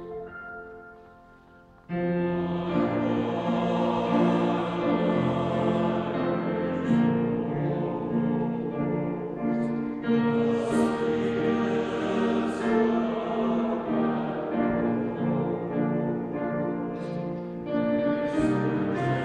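Mixed choir singing a sustained, full-voiced passage in the echoing space of a large stone cathedral. After a hushed first two seconds, the voices come in together and loud.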